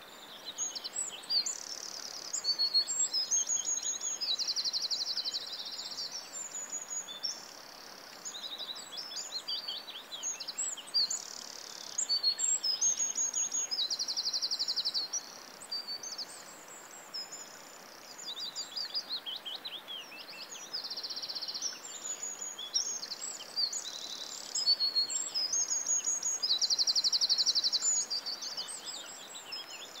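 Songbirds singing continuously in high-pitched, overlapping phrases: rapid trills, quick chirps and buzzy notes, over a faint steady background hiss.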